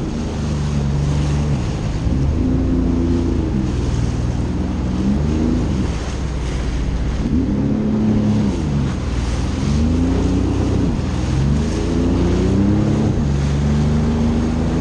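Jet ski engine running under changing throttle, its pitch rising and falling again and again, over the rush of wind and water.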